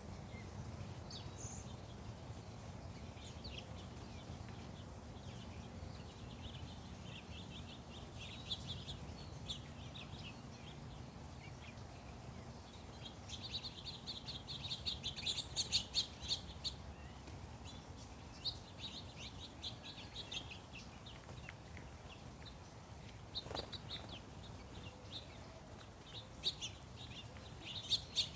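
Small songbirds chirping in bursts of rapid high chirps, busiest around the middle and again near the end, over a steady low background rumble. One short sharp click about three-quarters of the way in.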